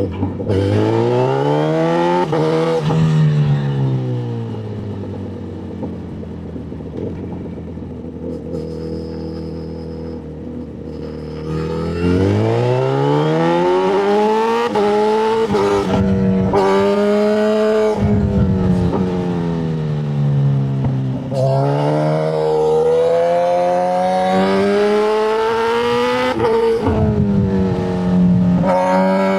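Motorcycle engine revving hard, its pitch climbing and falling again and again, with a quieter, steadier stretch from about four to twelve seconds in.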